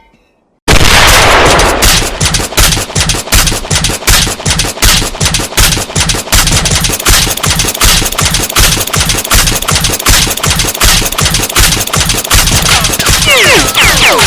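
Sound-effect recording of automatic gunfire. After a brief silence it starts abruptly about half a second in and continues as rapid, dense shots. Near the end several falling whistling tones join in.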